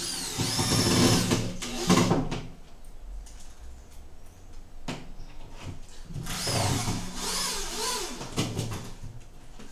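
Cordless drill-driver driving screws into a white cabinet panel, in two runs of motor whine: the first starts at once and lasts about two and a half seconds, the second comes about six seconds in. The whine rises and falls in pitch as the trigger is eased in and out, which is how this driver's speed and torque are controlled.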